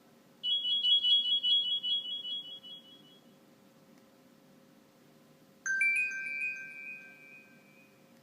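Nokia 6500 Slide's loudspeaker playing two short electronic alert tones. About half a second in comes a quick run of high beeps that rings out and fades over a few seconds. Nearly six seconds in a lower chime sounds and decays.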